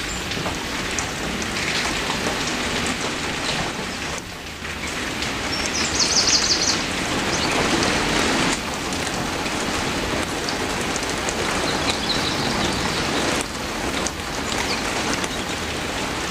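Heavy rain falling: a steady dense hiss with the patter of individual drops on a surface. It swells briefly louder and brighter about six seconds in.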